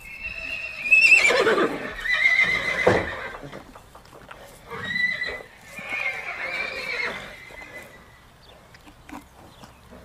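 Horse whinnying twice: a long, wavering, high-pitched whinny over the first three seconds, then a second whinny from about five seconds in that trails off near eight seconds.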